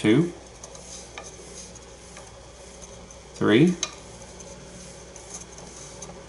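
Thread-wrapping setup turning in short spurts as orange thread is wound onto a wooden dowel. Each spurt makes a brief rising whine, three times about three seconds apart.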